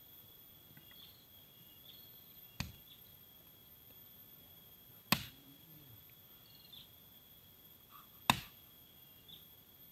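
Hatchet chopping wood on the ground: three sharp strokes a few seconds apart, the last two the loudest, over a steady high insect drone.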